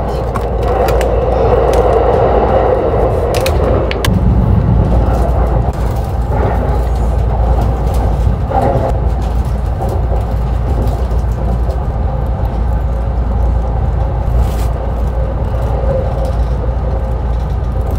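Steady low rumble of a train running, heard from inside the passenger car, with a louder hum in the first few seconds and a few brief clicks.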